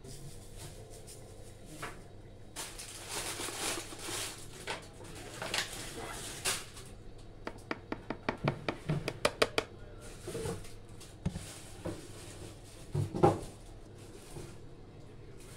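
Kitchen handling sounds while a marinade is put together: a paper sugar sachet rustling as it is emptied into a plastic tub, then a quick run of light taps (about five a second) as a plastic measuring spoon is knocked against the tub to shake off spice. A single louder knock comes near the end.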